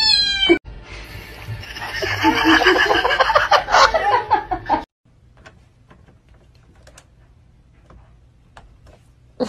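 A cat's meow, cut off half a second in, then about four seconds of laughter. The laughter stops abruptly, leaving a quiet stretch with a few faint clicks.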